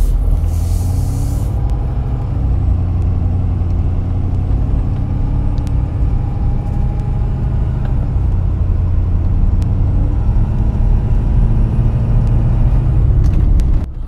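2017 Ford 6.7 L Power Stroke V8 turbodiesel under way, heard from inside the cab: a steady low engine drone with turbo and intake noise over it, louder with the No Limit Fab Stage 2 air intake fitted. A rush of hiss comes in the first second or so.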